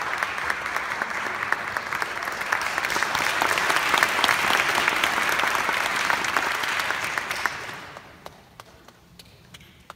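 Audience applauding: dense clapping that dies away about eight seconds in, leaving a few stray claps.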